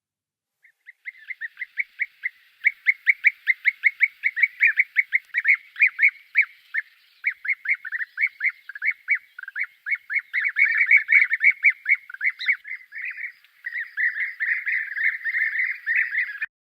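A bird calling in a long, rapid series of short downward-slurred notes, several a second, which start about a second in and crowd closer together in the second half.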